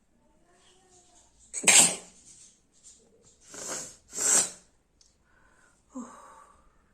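A person sneezes sharply, the loudest sound, about a second and a half in. Two more forceful nasal bursts follow around four seconds in, and a short snort comes near the end.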